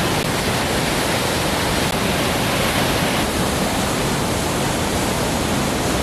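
Waterfall pouring over a rock ledge into a rocky pool, a steady rushing of water.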